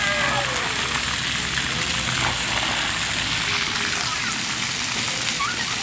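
Steady hiss and patter of splash pad water jets spraying and falling onto the pad, with voices calling out briefly at the start and again near the end.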